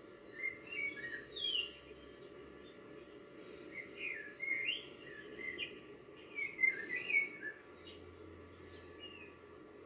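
A songbird singing quick, chirping phrases of notes that glide up and down, in three bursts with short pauses between, the later bursts louder. A steady low hum of background noise lies underneath.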